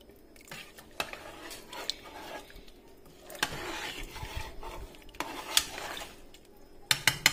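Metal spoon stirring chicken pieces in a pot of tomato-sauce broth, scraping and clinking against the pot: a run of scraping in the middle and a cluster of sharp clinks near the end.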